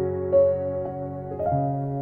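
Relaxing ambient piano music: a few slow notes struck over held lower notes, with the bass shifting about a second and a half in.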